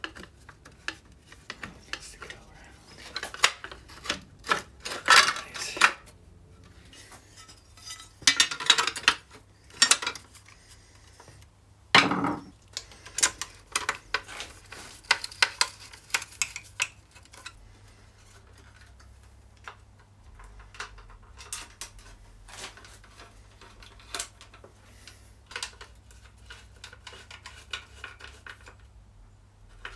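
Metal parts and tools clinking and clattering as they are handled, in several bursts with a single heavier knock near the middle, over a low steady hum.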